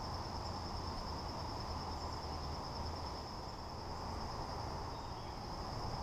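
Insects, most likely crickets, trilling in one steady high-pitched drone over a low, even background rumble.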